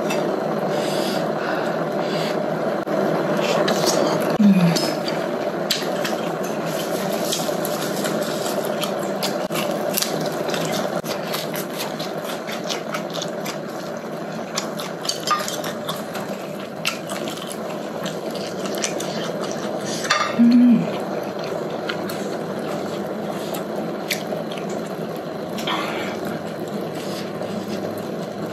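Hotpot broth simmering steadily in an electric hot pot, with scattered light clicks of wooden chopsticks against the pot and dishes.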